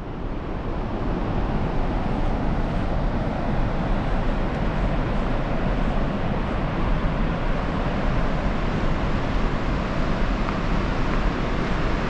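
Steady rushing of Målselvfossen, a large river waterfall carrying a heavy volume of water over a series of drops, fading up over the first second and then holding even.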